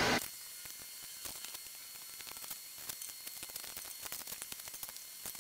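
Faint steady hiss with a thin high whine, and scattered light clicks and taps from the man handling the bandsaw.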